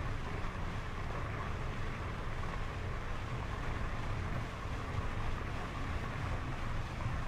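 Steady riding noise of a Lectric XPEAK 2 electric bike rolling along a trail: a constant low rumble of tyres and wind with a faint steady whine above it.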